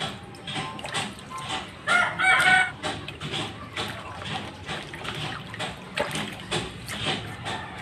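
Hands swishing and rubbing wild mushrooms in a plastic basin of water, with repeated small splashes and sloshes. About two seconds in, a chicken calls once, briefly, louder than the washing.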